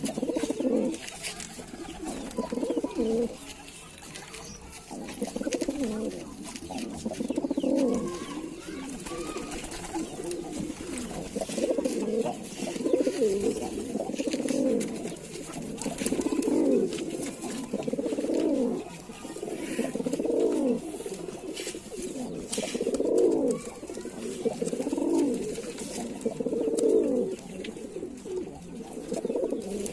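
Domestic pigeons cooing over and over, low coos following one another every second or two.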